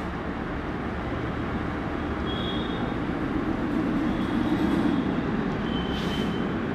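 Steady low rumbling background noise that swells slightly in the middle, with a few faint, short high squeaks of a marker writing on a whiteboard.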